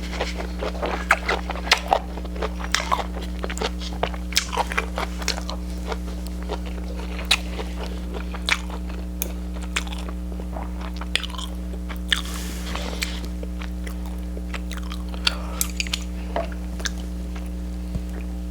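Close-miked eating: a person chewing and biting crunchy food, with irregular crackles and small clicks, over a steady low hum.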